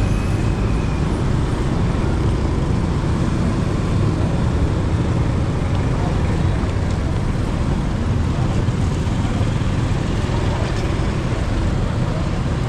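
Steady vehicle and road-traffic noise heard while riding along city streets, a constant low rumble with no let-up.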